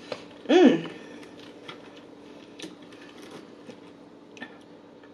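A short hummed "mm" of enjoyment with a rising-then-falling pitch about half a second in, followed by faint, scattered small clicks of chewing and a fork on fried food.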